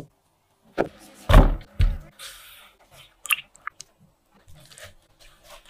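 Knife chopping through steamed taro onto a cutting board, giving a few dull thumps, the loudest about a second and a half in. A short hiss and light clicks and taps follow as ingredients go into a glass bowl.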